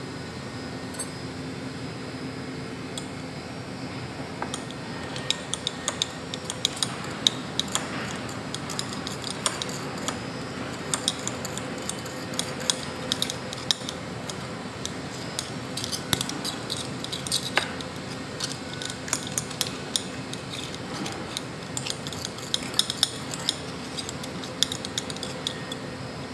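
Glass stirring rod clinking and scraping against the inside of a glass Erlenmeyer flask while stirring a slurry of ash in hydrochloric acid: quick, irregular ticks that start a few seconds in, over a steady low hum.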